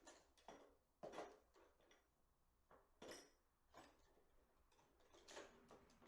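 Faint, irregular clicks and light taps, about six of them, the clearest about a second in and about three seconds in.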